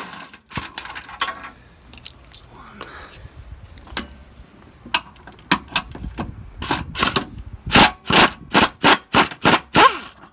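Hand tools working out the 15 mm trailing-arm pivot bolts: sharp metallic clicks and clinks. They are scattered at first, then come in a quick run of about three a second over the last few seconds.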